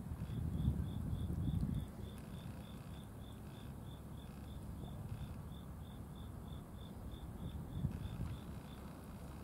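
A cricket chirping steadily, about three short high chirps a second, in runs with brief pauses. A low muffled rumble is louder in the first two seconds and again briefly near the end.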